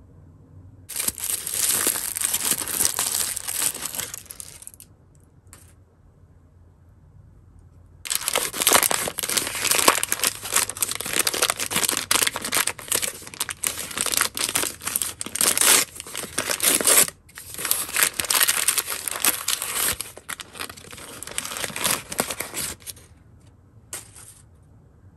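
Plastic L.O.L. Surprise Mini Sweets blind-bag packet crinkling and being torn open by hand: a few seconds of crinkling, a pause, then a longer stretch of crinkling and tearing that breaks off briefly once.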